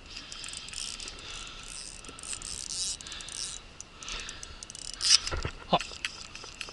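Fishing reel working as a hooked fish is played on a bent rod: a steady run of fine mechanical clicking and whirring, with a couple of sharper knocks a little after five seconds in.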